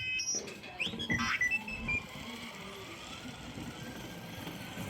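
R2-D2-style electronic beeps and warbling whistles from the droid's small speaker for about the first two seconds, then a steady hum.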